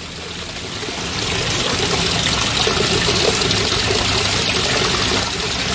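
Creek water splashing and rushing over rocks, growing louder over the first two seconds and then steady.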